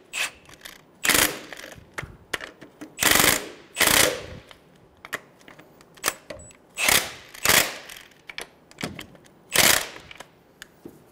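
Cordless impact wrench hammering in short bursts, a second or more apart, as it snugs the two top nuts of a Ford Focus engine mount down in turn.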